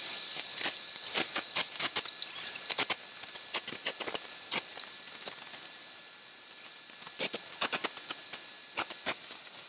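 Stick (arc) welding on steel wire mesh: the electrode arc sizzles with a steady hiss, broken by frequent irregular sharp crackles and pops.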